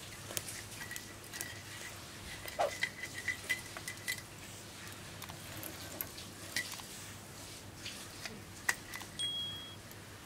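Scattered light clinks and taps of a metal serving tray and a wire grill rack being handled.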